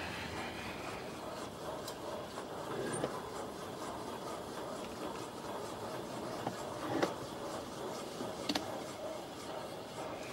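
Steady background noise with a few light clicks or knocks, the sharpest about seven seconds in and a close pair about eight and a half seconds in.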